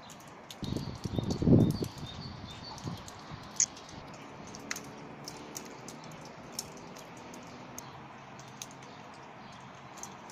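Outdoor ambience: low rumbling gusts in the first few seconds, a run of short high chirps, and scattered light clicks.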